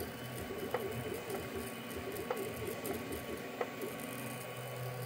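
Ender 3 3D printer's stepper motors whining in quick rising and falling pitches as the print head traces the curved first-layer outlines, over the steady hum of its fans. Three sharp ticks come at about one-and-a-half-second intervals.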